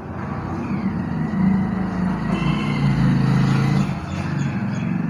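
Hot oil sizzling as cubes of semolina-potato snack shallow-fry in a pan, under a louder low motor-vehicle engine drone that swells and then fades over several seconds.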